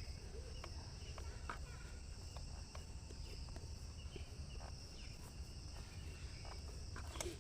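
Faint, steady chirping of crickets, with a few soft scattered clicks.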